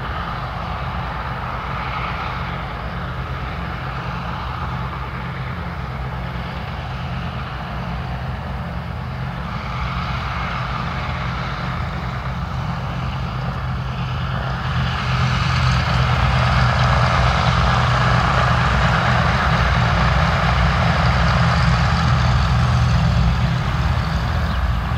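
Twin Pratt & Whitney radial engines of a Douglas DC-3 running at taxi power, a steady, low, pulsing drone that grows louder about fifteen seconds in.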